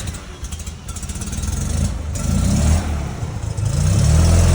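Fiat 500's small air-cooled two-cylinder engine running and revving up. It gets louder and rises in pitch over a couple of seconds, then holds steady near the end.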